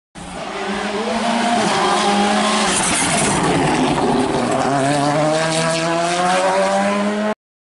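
Rally car engine at high revs under load, holding steady, dipping about three seconds in, then climbing steadily as the car accelerates away. The sound starts and cuts off abruptly.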